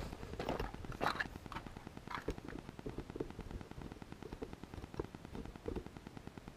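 Footsteps crunching on gravel: a few firm steps in the first couple of seconds, then fainter shuffling crunches.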